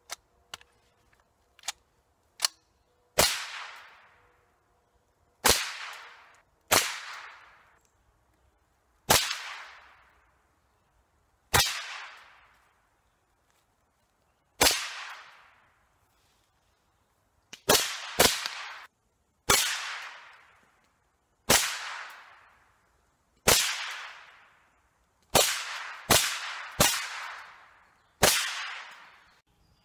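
Rifle shots: about fifteen sharp single shots at irregular intervals of one to three seconds, each followed by a short ringing tail. A few faint clicks come before the first shot.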